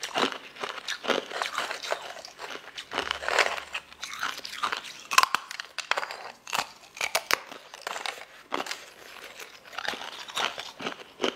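Lotus root slices being bitten and chewed: a run of crunches, several a second, with a few sharper snaps in the middle.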